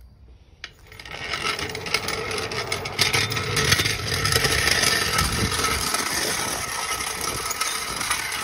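Steel-wheeled floor jack pushed by its handle across rough concrete, its wheels rattling and scraping steadily, starting about a second in.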